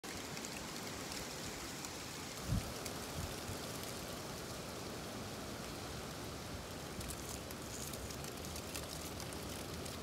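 Strong wind blowing: a steady rushing hiss, with gusts buffeting the microphone in low thumps, the strongest about two and a half seconds in.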